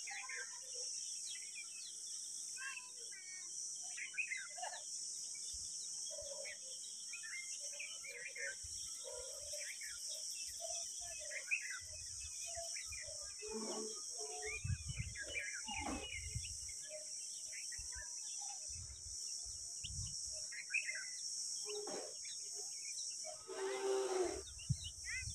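Small wild birds chirping on and off in the background over a steady high-pitched hiss, with a few soft low bumps around the middle and near the end.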